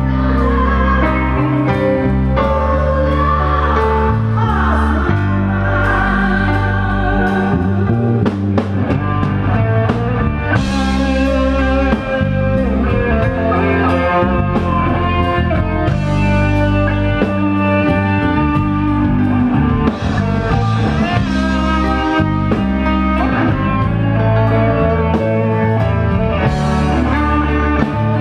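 Band music played live: a full band with a steady drum beat under sustained instrumental notes.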